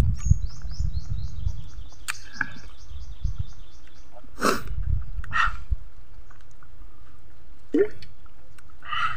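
A bird singing a fast run of short, high, falling notes, about four a second, for the first few seconds, over a low rumble. A few short, louder mouth and breath noises from the man follow.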